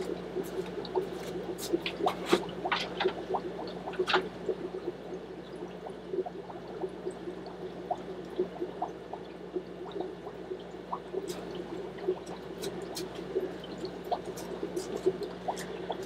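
Aquarium water trickling and bubbling from many air-driven tanks, over a steady low hum, with scattered small drips and light clicks.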